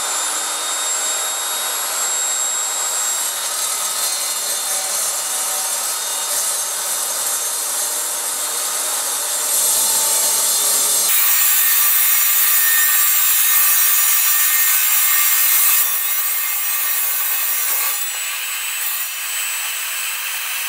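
Evolution table saw running with its multi-material blade cutting through a 10-gauge aluminium sheet: a loud, high, harsh cutting noise over the saw's steady whine. It grows louder about halfway through and stops suddenly near the end.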